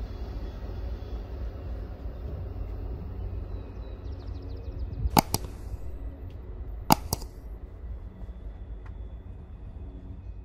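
Two sharp double mouse-click sound effects, about two seconds apart, from a subscribe-button animation, over a low steady rumble.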